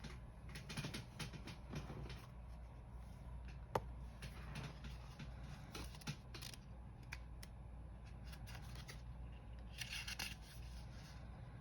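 Faint paper rustling and small clicks as the pages of a small tarot guidebook are leafed through, with one sharp tick about four seconds in and a brief louder rustle near the end.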